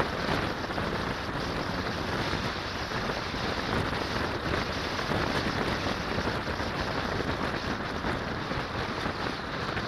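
Wind rushing over the microphone of a Mazda MX-5 convertible driving with its top down at road speed, a steady rush with road noise beneath.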